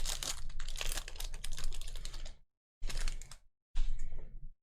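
Basketball trading cards being flipped and slid through the hands: a dense run of rapid clicks and rustling, then two shorter bursts after a brief pause.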